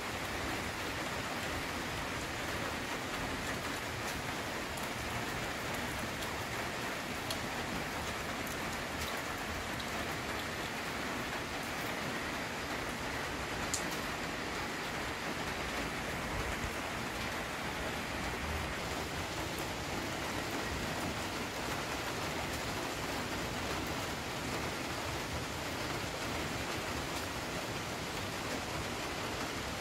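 Steady rain falling, a continuous even hiss with occasional sharp ticks of single drops.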